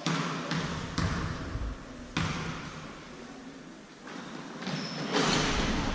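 Basketball dribbled on a gym floor: a few sharp bounces about half a second apart, then another about two seconds in, echoing in the hall. Crowd voices swell near the end.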